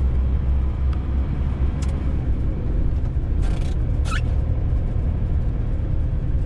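Peugeot Boxer camper van driving slowly, its engine and tyres making a steady low rumble heard from inside the cab. A few brief high squeaks sound around the middle.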